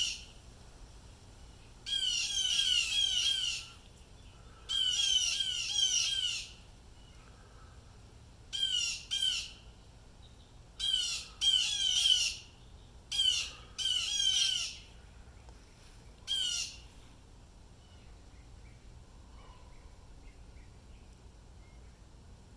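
Blue jays giving harsh, rapidly repeated jay calls in bouts of several quick falling notes each, with short pauses between bouts. The calls stop about two-thirds of the way through. These are alarm calls, which the recorder takes for a distress call from at least three jays.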